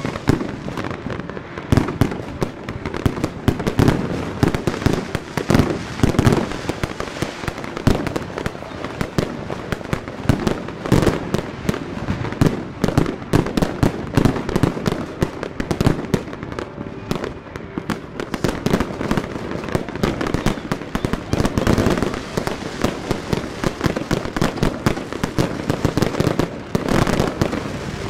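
Fireworks and firecrackers going off all around in a dense, continuous barrage: overlapping bangs and sharp cracks several times a second, with no let-up.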